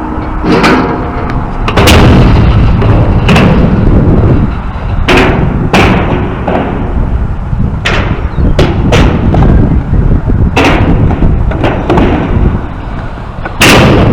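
Skateboard rolling on rough concrete with a steady low rumble from the wheels, broken by about ten sharp clacks and slaps of the board hitting the ground; the loudest comes near the end.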